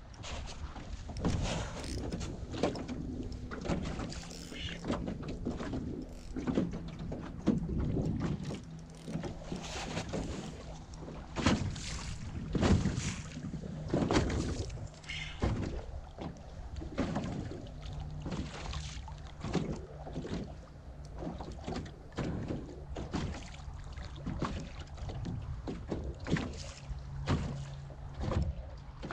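Irregular splashes and knocks of water and a thrashing fish against a small boat's hull, from a hooked bull shark held alongside, over a faint steady low hum.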